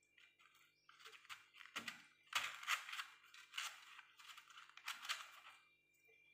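Freezer frost being squeezed and crumbled by fingers, crunching and crackling in a run of short bursts.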